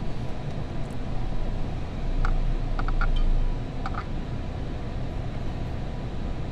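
Steady low background rumble, with about six small clicks between about two and four seconds in as a screwdriver turns the hose clamp on the coolant expansion tank's hard tube.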